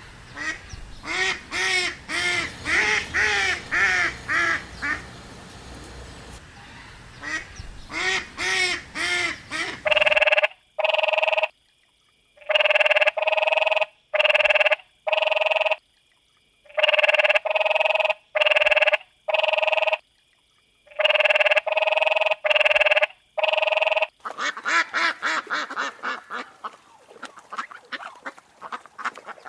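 Waterfowl calling in three separate recordings. First comes a rapid run of calls, then a series of loud, evenly spaced calls with silent gaps between them, and near the end fast chattering calls.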